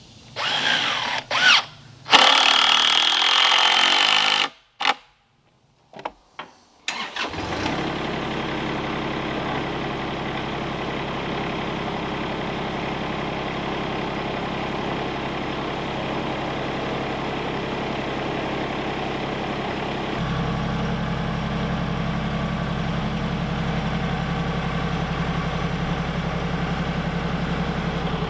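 A cordless drill whirs in two short bursts, driving screws into lumber. After a break, a compact tractor's engine runs steadily, getting louder and deeper about two-thirds of the way through as the throttle comes up.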